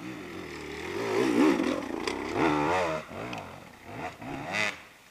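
Enduro dirt bike engine revving hard under load on a steep hillclimb, the pitch rising and falling repeatedly as the throttle is worked in surges. The engine sound cuts off shortly before the end.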